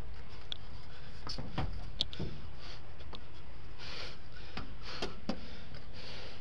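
A climber's hands gripping and shifting on the metal fins and glass of a skyscraper facade: scattered light knocks and scrapes, about nine in all, over a steady low wind rumble on the microphone.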